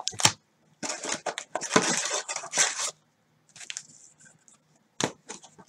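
Cellophane-wrapped Panini Prizm trading card packs crinkling and rustling as they are lifted out of the box and stacked, in a run of crackles for the first three seconds, then a few sparser ones and a sharp crackle about five seconds in.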